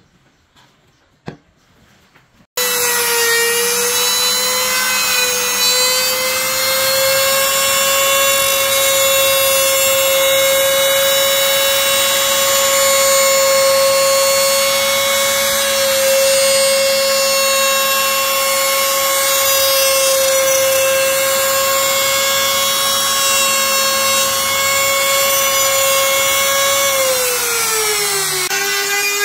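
Compact trim router starting up, then running with a loud, steady high whine while routing a circular groove in wood; its pitch sags near the end. Before it starts there is one sharp click.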